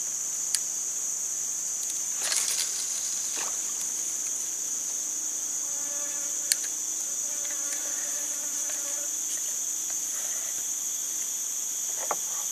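Steady, high-pitched insect chorus droning without a break, with two sharp clicks, one just after the start and one about halfway through, and a brief rustle about two seconds in.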